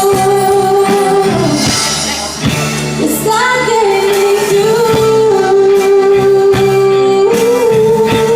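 Live band playing a slow pop ballad, a singer holding long drawn-out notes over the accompaniment, with a brief break about two seconds in before the voice steps up in pitch.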